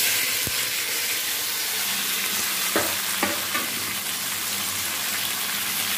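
Sliced onion, tomato, green chillies and garlic sizzling steadily in hot oil in a kadhai, with a couple of brief clicks about three seconds in.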